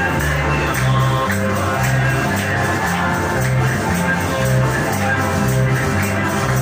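Loud up-tempo worship music (coros) played through a sound system: a repeating bass line under a steady, bright percussive beat.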